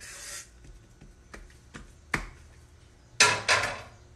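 Dough being tipped and scraped out of a metal mixing bowl onto a floured stone countertop: a short scrape, a few light knocks, then a louder double scrape-and-knock about three seconds in.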